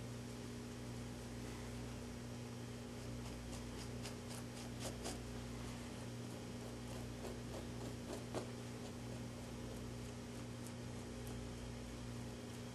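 Steady low electrical hum, with faint scraping and a few small clicks from a knife working the skin of a mule deer cape; the sharpest click comes about eight seconds in.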